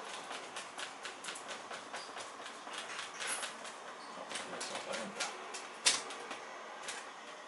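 A sponge dabbing and scrubbing acrylic paint onto a painting board on an easel: a quick, uneven run of soft taps and scrapes, with one sharper knock about six seconds in.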